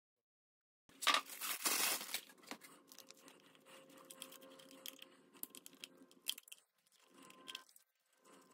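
After a second of silence, a short loud crinkling rustle of plastic packaging, then quieter clicks and rustling as small locking-hub parts and a screwdriver are handled.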